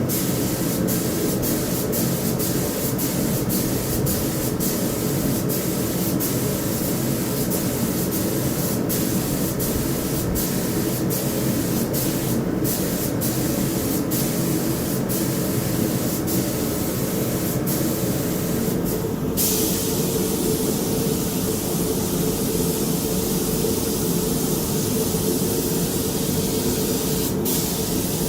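Compressed-air spray gun spraying paint, the hiss cutting off briefly many times between short passes, then held in one unbroken pass for about eight seconds near the end, over a steady low hum.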